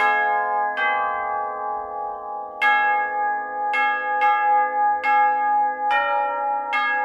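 A hymn tune played slowly on a set of tubular bells struck with a hammer: about eight notes, each left ringing under the next.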